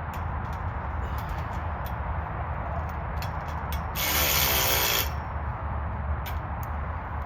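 Ratchet wrench clicking fast for about a second near the middle, tightening the bench's bolts, with scattered small metal clicks of parts being handled before and after.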